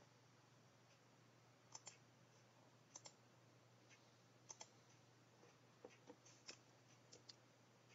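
Faint computer mouse clicks, several spread a second or so apart and some in quick pairs, over a faint steady hum.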